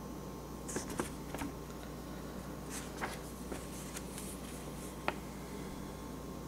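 Paper pages of a small instruction booklet being turned and handled: a few short crisp rustles and crinkles, then a single sharp tick about five seconds in, over a faint steady hum.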